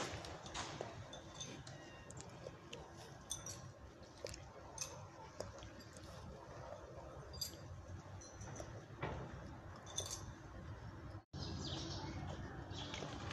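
Outdoor ambience: small birds chirping now and then over a steady low background, with light clicks and rustles. The sound cuts out for a moment near the end.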